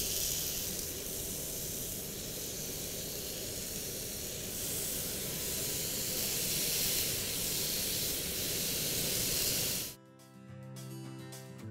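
Pineapple slices sizzling on a hot cast-iron grill pan, a steady hiss that cuts off suddenly near the end.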